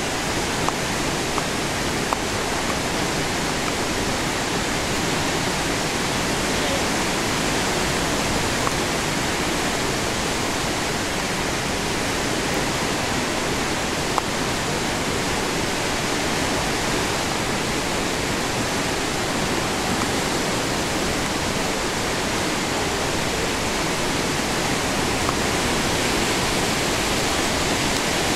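The Athabasca River's whitewater rushing steadily through a rock gorge: a loud, even wash of water noise that never lets up, with a few small clicks.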